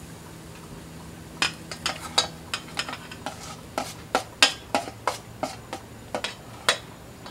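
A spoon stirring pancake batter in a bowl, with about twenty quick, irregular clicks against the bowl starting about a second and a half in and stopping near the end, over the steady sizzle of batter-coated sausage patties frying on the griddle.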